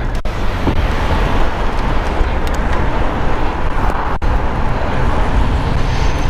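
Steady rush of wind and street-traffic noise picked up by a helmet-mounted camera on a moving bicycle, heaviest in the low end.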